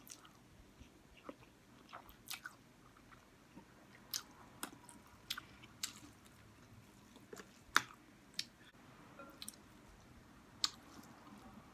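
Close-up mouth sounds of a person eating spicy instant noodles: quiet chewing broken by scattered short, sharp wet smacks and clicks, the loudest about two thirds of the way through.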